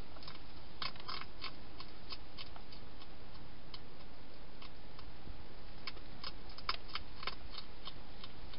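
Wild hedgehog crunching dry food: irregular crisp clicks, bunched about a second in and again near the end, over a steady hiss.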